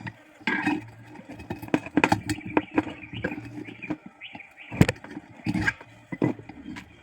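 Irregular clicks and knocks, with the sharpest knock a little before five seconds in, over a faint low steady hum.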